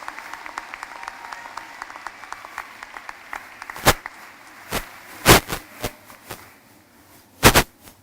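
Audience applause thinning out and dying away over the first few seconds, followed by several loud, sharp thumps close to the microphone, the last two in quick succession near the end.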